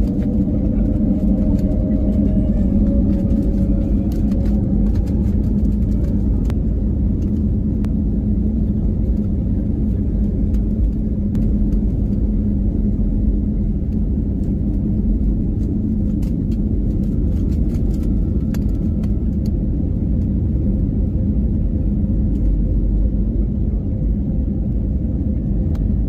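Airbus A320 cabin noise: a steady low rumble and hum with many small rattles and clicks from the cabin fittings.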